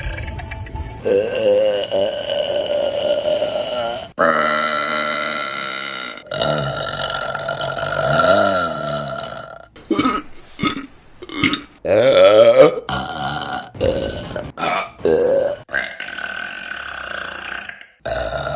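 A series of women's burps, one after another. First come several long, drawn-out burps with a wavering pitch, then about ten seconds in a quick run of short ones, and another long burp near the end.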